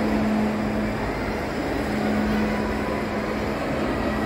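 Indoor shopping-mall atrium ambience: a steady wash of distant crowd murmur and ventilation noise, with a low hum that fades in and out a couple of times.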